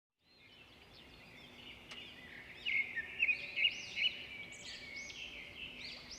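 Birds singing, with many short chirping notes from several birds overlapping. The birdsong fades in at the start and is loudest through the middle.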